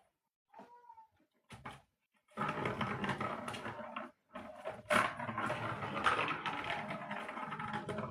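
Rapid rustling and scratching of a cat playing with a toy, running for several seconds with a short break about four seconds in.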